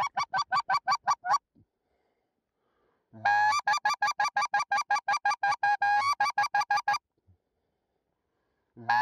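Goose call worked by hand in rapid runs of short, clipped honks, about seven a second: one run ending about a second and a half in, a longer one from about three to seven seconds, and another starting near the end.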